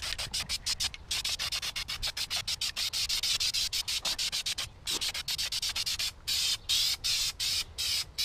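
Aerosol can of black peel-off spray paint spraying, a hiss broken into many quick short bursts; near the end the bursts are longer and further apart.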